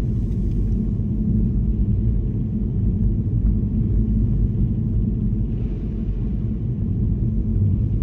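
A car driving on snowy streets: a steady low rumble of tyres and engine, with a brief soft hiss about two-thirds of the way through.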